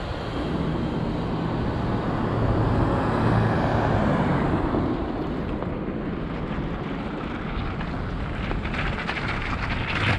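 Street traffic: a vehicle passes close by, its engine and tyre noise swelling to a peak about four seconds in and then easing off. Sharp crackling noises come near the end.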